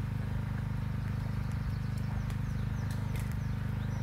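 A steady, low mechanical hum like a running engine, with a fast, even throb, and birds chirping faintly over it about two to three seconds in.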